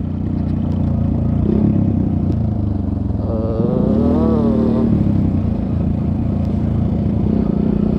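Suzuki Gixxer motorcycle engine running steadily while riding, with wind noise. A brief wavering tone rises and falls about three to five seconds in.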